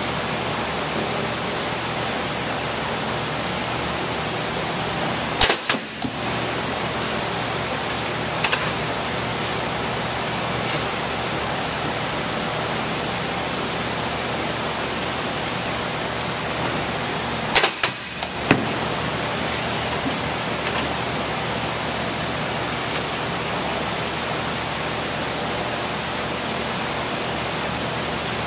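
Drop-test machine releasing a packed cardboard wine shipper onto its steel floor plate, twice, about twelve seconds apart: each drop is a quick clack followed by knocks as the box lands. A steady hiss-like background noise runs underneath.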